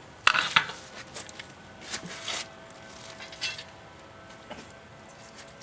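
Workshop handling noises while the next cut is being set up, not the saw running: a sharp knock about a quarter second in, then scattered light clunks and rustles over a faint steady hum.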